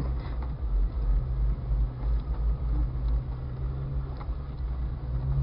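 1999 Jeep Cherokee XJ's engine running, heard from inside the cab: a steady low hum over an uneven rumble, growing slightly stronger near the end.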